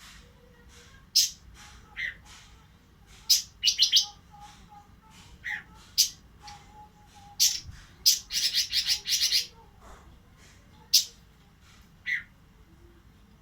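Pekin robin (red-billed leiothrix) in breeding condition calling: sharp, short, high notes every second or two, a quick stuttering trill about four seconds in and a longer rattling trill lasting over a second a few seconds later.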